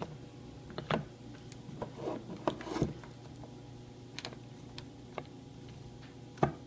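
Several sharp clicks and knocks from a power plug and wires being handled and plugged in, over a steady low electrical hum. The fan motor does not run: it is faulty.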